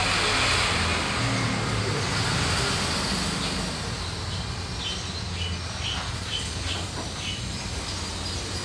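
Road traffic passing, a steady engine and tyre noise, with a bird chirping several times in quick succession midway.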